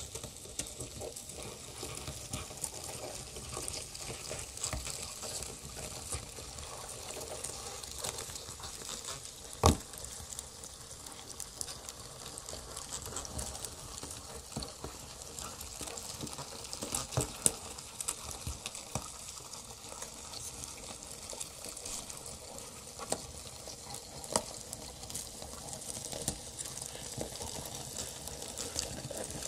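Live experimental electronic noise from a patched modular synthesizer rig: a dense crackling, sizzling texture of tiny clicks over a hiss. One sharp loud click about ten seconds in, and a few louder clicks a little later.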